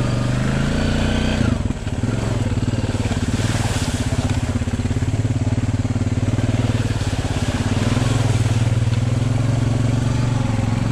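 Four-wheeler (ATV) engine running under throttle through mud, the note dipping briefly about two seconds in, then pulling steadily and a little louder near the end.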